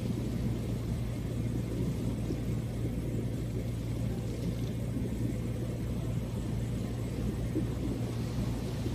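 Steady low rumble with a constant hum underneath and no distinct events.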